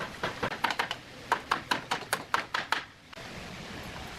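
Rapid hammer strikes on wood, about five a second, stopping abruptly about three seconds in; a steady hiss follows.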